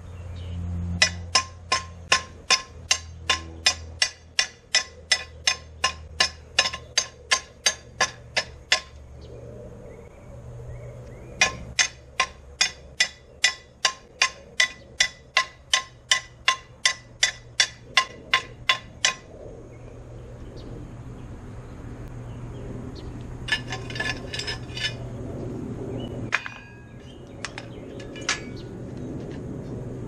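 Hammer striking welded steel in a steady rhythm of ringing metallic blows, about two and a half a second, in two long runs with a pause between: chipping slag off a flux-core wire weld. Near the end comes a brief metallic clatter and a single clank.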